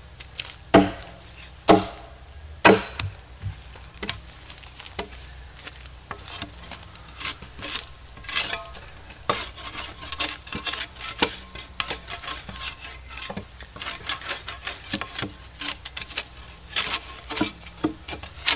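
Steel spades debarking felled logs: three hard strikes of the blade on the wood in the first three seconds, then a run of quick scraping strokes as bark is peeled off.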